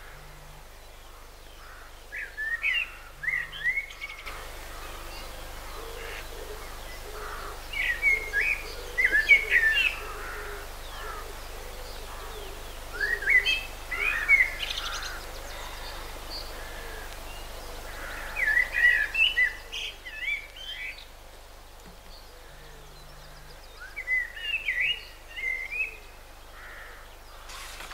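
Common blackbird singing: five short song phrases, each a couple of seconds long, spaced about five seconds apart.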